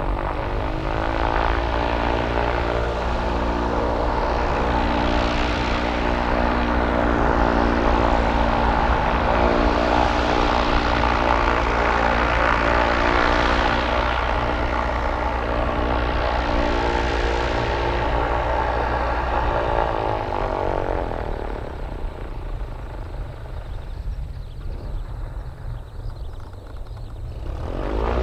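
Cessna 172P Skyhawk II's four-cylinder Lycoming engine and propeller running, steady and loud for about twenty seconds, then fading down, and rising again at the very end.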